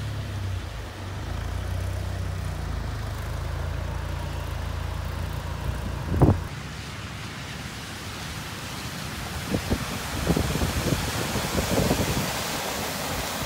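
Cars driving through floodwater on a street, their tyres throwing up splashing spray in uneven bursts during the last few seconds, over a low rumble of wind on the microphone. A short, loud thump comes about six seconds in.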